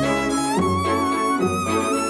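Instrumental cartoon background music: a melody of long held notes with a slight vibrato over a bass line that changes note every half second or so.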